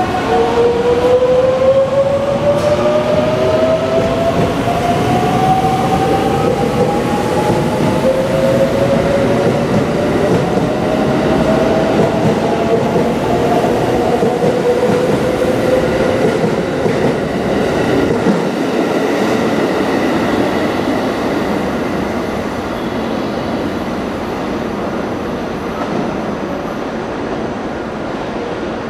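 Limited express electric train pulling out of a station, its motors whining steadily upward in pitch as it gathers speed for about fifteen seconds. The running noise of the train then slowly fades as it leaves.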